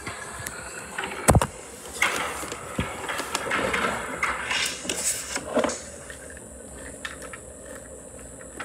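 A single sharp knock a little over a second in, followed by a few seconds of irregular rustling and light bumps, then a low steady background.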